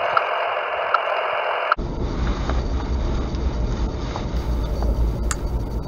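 VHF radio-telemetry receiver hissing with static, with short faint beeps from a radio collar a little under a second apart. A little under two seconds in it cuts off abruptly to a steady low rumble of wind and road noise from a moving vehicle.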